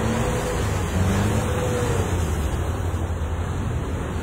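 Jeep Wrangler engine revving up and down as the vehicle spins and slides through wet mud.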